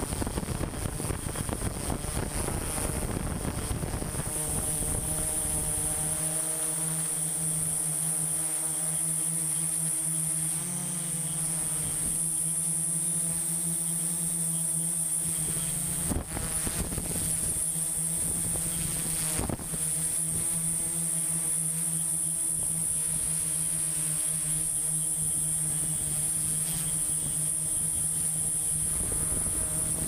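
Quadcopter drone's motors and propellers running, heard through the drone's own camera: a steady hum with a high whine above it. Wind rushes over the microphone for the first few seconds.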